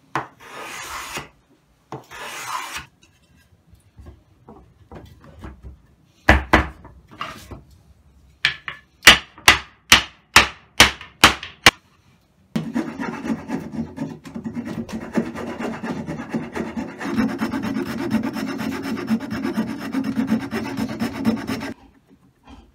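Hand woodworking on pine. It opens with a few short hand-plane strokes, then comes a run of sharp wooden knocks, about two a second. From about twelve seconds in, a tool rasps steadily on the wood for some nine seconds and then stops suddenly.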